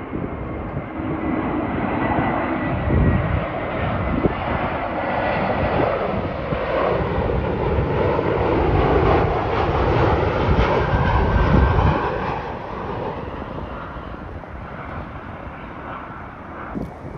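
Jet airliner on final approach passing low overhead: the engines' rumble and whine swell to a peak about ten seconds in, then fade away. A thin whine slides slowly down in pitch as it comes over.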